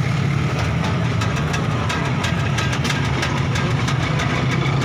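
A steady low engine rumble, with a rapid scatter of sharp clicks on top of it.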